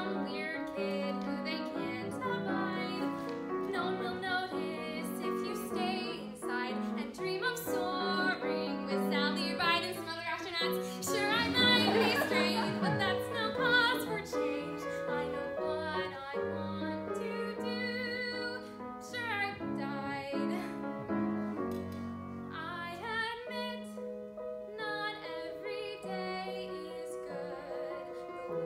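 A woman singing a musical-theatre song solo, accompanied on grand piano. Her voice is loudest near the middle of the passage, where it wavers with vibrato.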